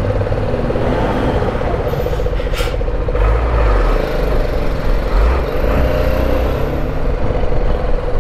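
BMW G310GS single-cylinder motorcycle engine running at low speed in slow traffic beside idling trucks and cars, with a steady low rumble. A short hiss about two and a half seconds in.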